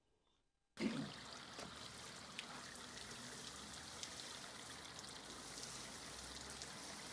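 Steady water spattering and trickling, with scattered drops ticking, starting abruptly about a second in.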